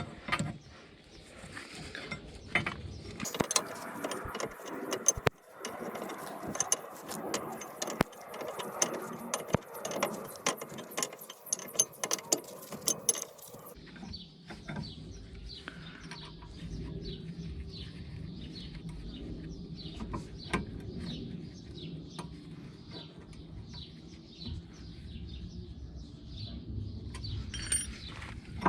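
Metal hand tools and parts clinking and ratcheting at a Mercedes CLK W208's front wheel hub, a dense run of rapid clicks for about ten seconds, then a steady low hum with scattered ticks.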